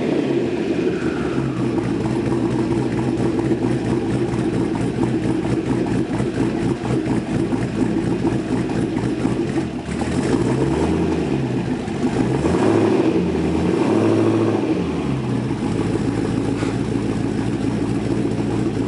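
The exhaust of a twin-turbo 2005 Pontiac GTO's 6.0-litre V8 running at a steady speed. In the second half the revs rise and fall back a few times.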